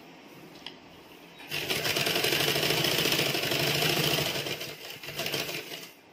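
Domestic sewing machine stitching through cloth. It starts about a second and a half in, runs steadily and fast for a few seconds, then slows unevenly and stops near the end. This is a test seam after the upper thread tension assembly has been refitted, to check that the thread no longer breaks.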